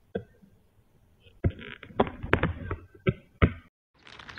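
Irregular sharp taps and knocks through a security camera's tinny microphone, about seven in three seconds, as a cat at the lens bumps and paws against the camera.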